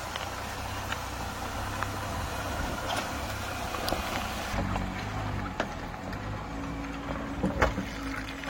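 Jeep Gladiator's engine running low and steady as it crawls down a rough, muddy trail, with scattered knocks and rattles from the truck over the ground, the loudest about three-quarters of the way through. A little past halfway the sound turns duller.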